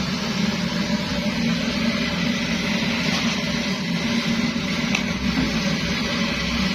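Kerosene pressure stove (primus burner) burning with a steady, unbroken rushing hiss.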